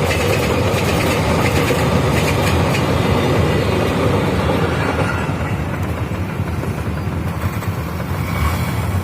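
Container freight train wagons rolling past on the rails, their wheels clacking over the rail joints. The higher rattle fades about five seconds in, leaving a low rumble.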